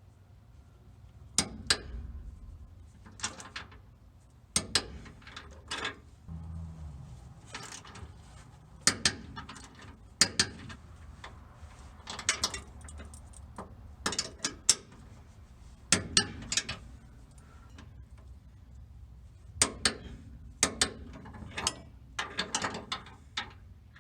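Sharp metallic clicks and clanks from hand tools working on the truck, often in pairs, every second or two.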